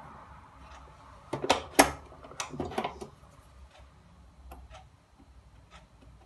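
Clicks and clunks of a stand mixer's tilt head being lowered and locked over its stainless-steel bowl, with a sharp knock a little under two seconds in, then a few faint taps.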